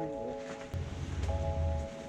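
Background music: held synth-like chords that change about every second and a half, with a deep bass coming in under them about three-quarters of a second in.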